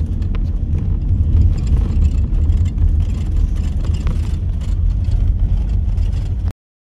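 Vehicle driving on a gravel dirt road, heard from inside the cab: a steady low engine and road rumble with small rattles and knocks from the rough surface. It cuts off suddenly near the end.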